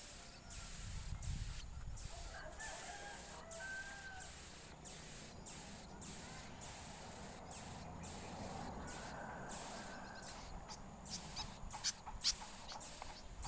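A rooster crowing faintly, twice, with scattered sharp clicks in between.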